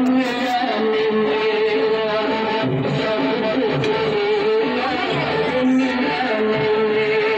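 Background music with guitar, a sustained melody over it.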